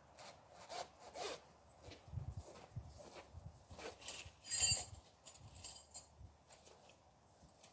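Tent fabric being handled while the fly sheet goes on: nylon rustling and rubbing in irregular strokes, with a louder scraping burst about four and a half seconds in.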